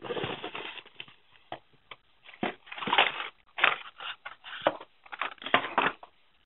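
Blister-carded Hot Wheels cars being pulled out of a cardboard shipping case: irregular crinkling and scraping of the plastic blisters and card backings against the cardboard. The noise is dense at first, then comes in separate sharp bursts.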